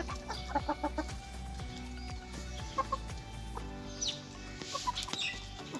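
Aseel chickens clucking, with a quick run of short clucks about half a second in and more scattered later, over background music.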